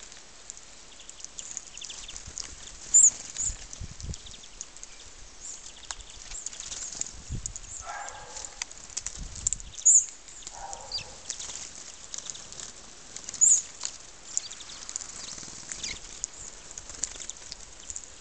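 Small birds chirping and twittering in many short high notes, with three louder sharp calls standing out.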